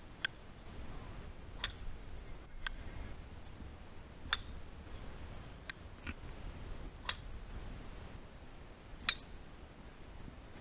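Golf drivers striking balls off the tee: about eight sharp clicks with a brief ringing, the four loudest two to three seconds apart and fainter strikes between.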